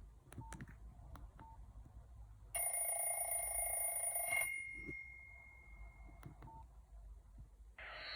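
Nokia 5130 XpressMusic mobile phone: a few faint clicks and short beeps, then a ringtone plays from its speaker for about two seconds and cuts off suddenly. Another ringtone starts near the end.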